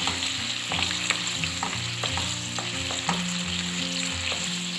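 Sweet and sour sauce with diced vegetables sizzling and simmering in a nonstick frying pan, stirred with a wooden spoon that clicks and scrapes against the pan many times. The gravy has just had cornflour slurry stirred in and is starting to thicken.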